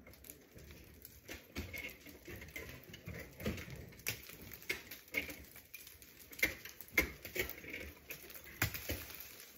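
Irregular sharp taps and clicks, several a second with a few louder strikes: ice tools and crampons biting into waterfall ice as a climber works up the route.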